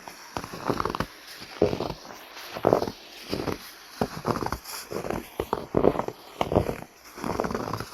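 Footsteps crunching through snow at an even walking pace, roughly one to two steps a second.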